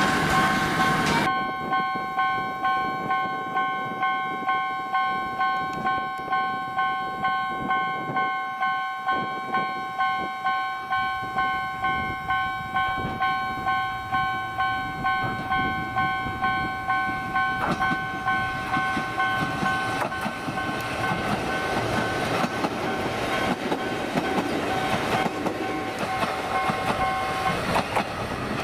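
A Japanese level-crossing warning bell rings steadily at about two strokes a second and stops near the end. Under it, an Ichibata Electric Railway 3000 series electric train approaches and passes, and its wheels rumbling and clattering on the rails grow louder in the second half.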